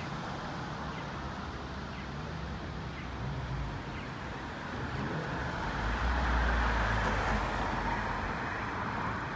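Night city street traffic: a steady hum of passing cars, with one vehicle passing close and growing louder from about halfway through. Faint ticks about once a second sound in the first few seconds.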